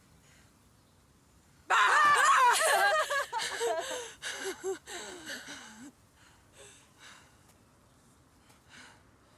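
A woman's sudden, loud, high-pitched scream about two seconds in, wavering in pitch, that breaks into choppy laughter fading away over the next few seconds.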